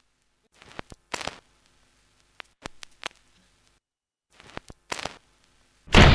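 Short, sharp clicks and knocks in three small clusters, then near the end one loud artillery gun blast that keeps rumbling.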